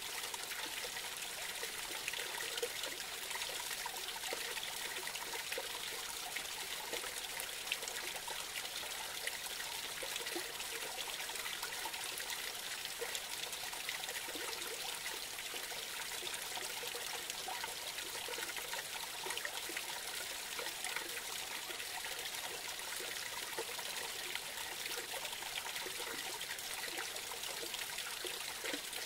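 A small creek trickling and splashing over a low drop in its bed, a steady flow of running water.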